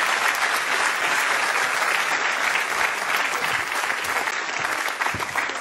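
Studio audience applauding, a dense steady clatter of many hands that eases slightly near the end.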